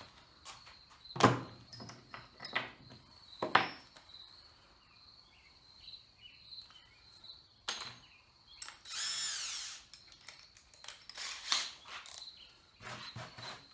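Workshop handling noise as plywood and tools are moved about on a bench: two loud knocks in the first few seconds and scattered clicks, with a brief high whir about nine seconds in, its pitch falling.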